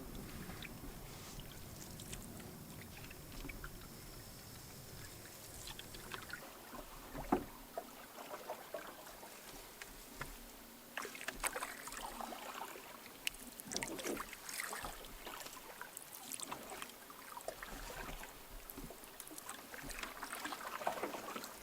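Canoe being paddled: quiet paddle strokes and splashes of water, with scattered small knocks and one sharper knock about seven seconds in.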